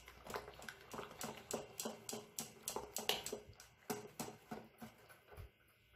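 A spoon stirring thick idli batter with tomato purée in a stainless steel bowl: quick wet slaps and clicks against the bowl, about four a second, faint, stopping about five seconds in.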